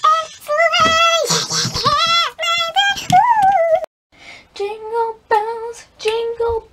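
A girl singing in a high voice, with notes held and sliding. The sound cuts out abruptly a little before halfway, then the singing picks up again.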